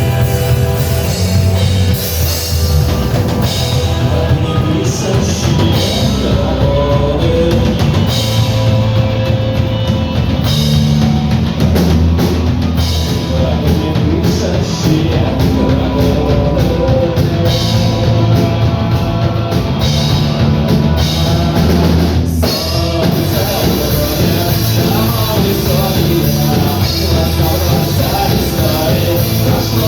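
Loud rock music with drums, distorted guitar and singing, with a brief break about 22 seconds in before the band comes back in.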